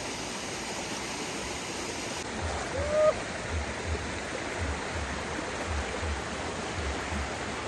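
A shallow rocky stream with a small waterfall, its water rushing steadily. From about two seconds in there are soft, irregular low thumps, and a short rising chirp sounds about three seconds in.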